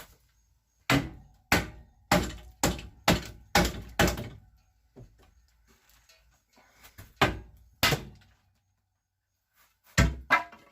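Dull blows on wood, knocking at a rotten board: a run of about seven strikes roughly two a second, then a pause and a few more spaced-out strikes near the end.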